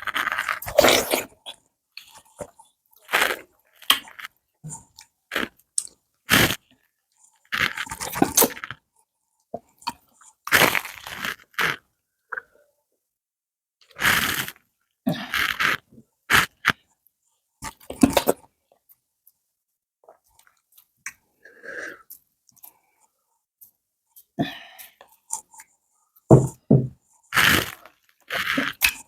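Close-up chewing and mouth sounds of people eating rice fufu with okra soup, in irregular bursts with short pauses between.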